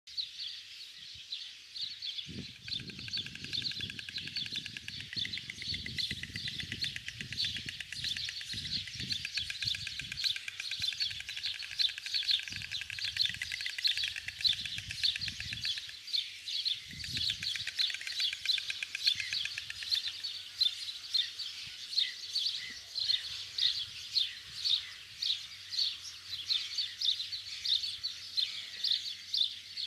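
White storks bill-clattering at the nest in the pair's greeting display, a rapid rattle that starts about two seconds in and dies away after about twenty seconds. Small birds chirp repeatedly in the background, about two chirps a second.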